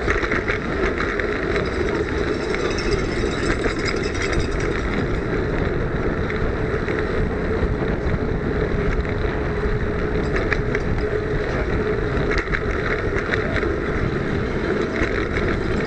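Brompton folding bike ridden at racing speed, heard from a camera mounted on the bike: a steady rush of wind and tyre noise with a constant hum and scattered short rattles.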